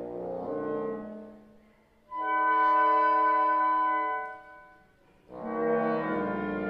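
A woodwind quintet of flute, oboe, clarinet, bassoon and French horn playing a slow blues movement. Sustained chords fade out, and after a short pause one instrument holds a single loud note for about two seconds. After another pause the full ensemble comes back in on a chord.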